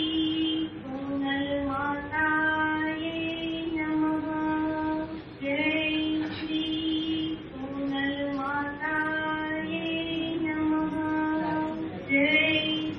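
Female voice singing an aarti hymn in long held notes, phrase after phrase.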